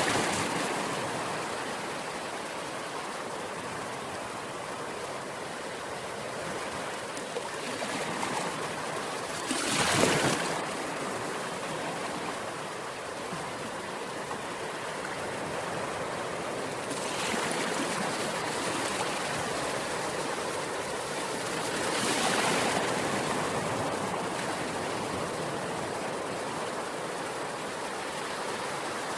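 Ocean waves breaking and washing up the shore, a steady rush of surf with a wave cresting every several seconds, the loudest about ten seconds in.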